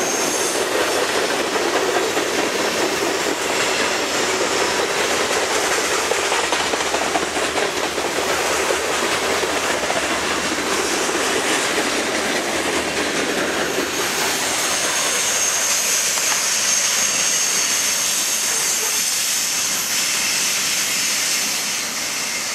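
Norfolk Southern freight train's covered hopper cars rolling past close by, their wheels clattering over the rail joints. About two-thirds of the way through, the rolling noise thins as the last cars go by, and a steady high-pitched sound is left.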